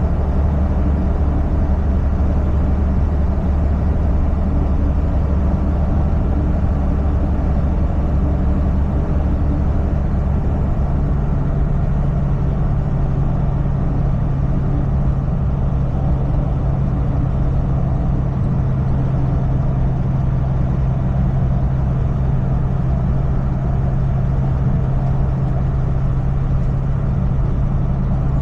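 Semi-truck driving, a steady drone of engine and road noise; the low hum steps up in pitch about ten seconds in.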